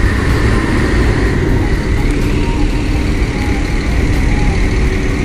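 Steady low rumble of a Mercedes-Benz coach's diesel engine as the bus crawls slowly over a ferry's steel loading ramp.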